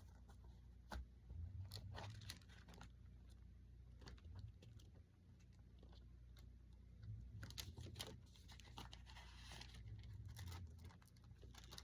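Faint rustling and crinkling with scattered light clicks close to the microphone, with a longer rustle about nine seconds in.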